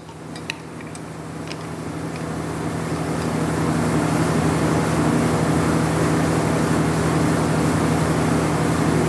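A few light clicks of metal parts being handled, then a steady mechanical drone with a low hum, like a running engine or motor, that swells over the first few seconds and then holds steady.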